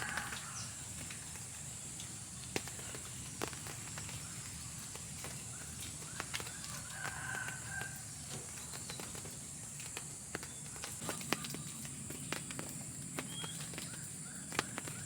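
Rain dripping: scattered light taps of drops over a steady high hiss, with a brief faint chirp about seven seconds in.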